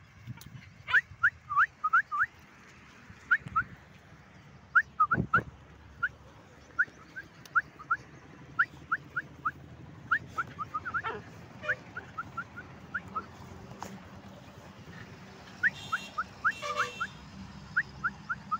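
A dog whining excitedly in short, high, rising squeaks, several a second in bursts that repeat, with a few louder cries near the end. A single thump about five seconds in.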